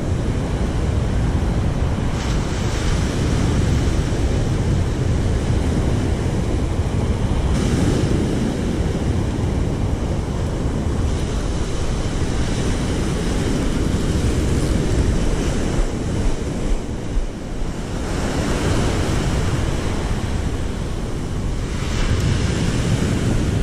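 Waves breaking on the beach, with wind buffeting the camera microphone.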